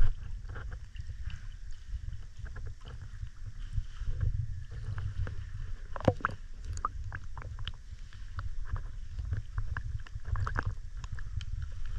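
Water sloshing and lapping against a camera held at the surface, a steady low rumble with many scattered small splashes and drips.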